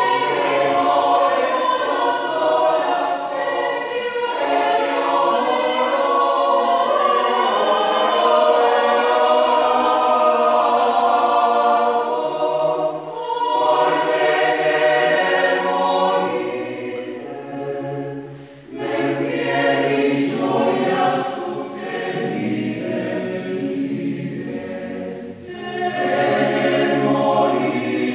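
Mixed choir of men's and women's voices singing a cappella in several-part harmony, with brief breaks between phrases a few times.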